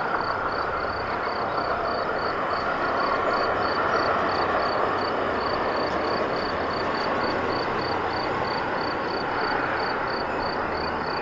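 Stadler Regio-Shuttle diesel railcar running across a viaduct: a steady, even noise of engine and wheels, with a faint high chirping repeating about four times a second.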